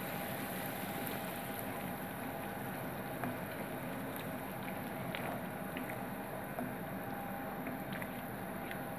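Masala paste of blended onion and spices simmering in a nonstick frying pan, a steady bubbling sizzle as it cooks down with a little added water. Light taps and scrapes of a wooden spatula come through now and then as it is stirred, over a faint steady hum.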